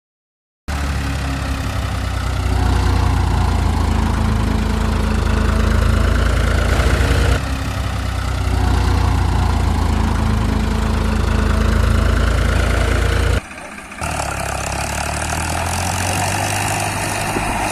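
A tractor-type engine running steadily with a low, fast-pulsing throb. It starts abruptly about a second in, changes abruptly at a cut around 7 s, and briefly drops out around 13.5 s.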